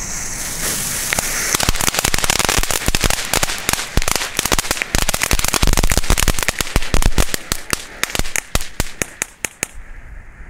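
Ship Ahoy youth-firework ground fountain hissing as it sprays, then crackling with a dense run of sharp little pops from about a second and a half in, thinning out and fading near the end.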